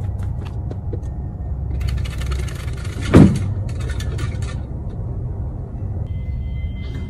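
A single loud thud about three seconds in over a steady low rumble, with rustling and light clicks around it.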